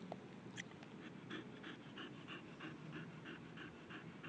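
Chow chow dog panting rapidly to cool off in hot weather, about three quick breaths a second, starting about a second in. A couple of light clicks come just before the panting begins.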